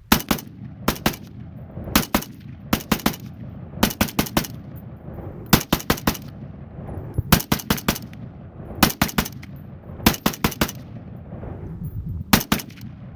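ATI Galil SAR semi-automatic 5.56 rifle, fitted with a blast can, fired in rapid strings of two to four shots, with about a second's pause between strings.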